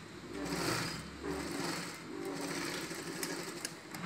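Mitsubishi industrial sewing machine stitching a seam through two panels of skirt fabric, running in two spurts. There are a few light clicks near the end.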